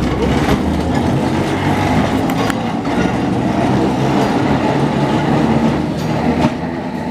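Kyoto City tram's nose-suspended traction motors and gears growling as the tram runs under power, with a few sharp clicks from the wheels on the track.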